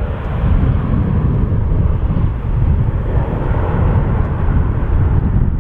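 Ryanair Boeing 737 jet engines at take-off thrust just after lift-off, running as a steady noise with a strong low rumble as the airliner climbs away.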